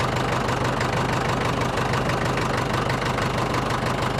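1957 McCormick International B250 tractor's four-cylinder diesel engine running steadily, with a fast, even knock of its firing.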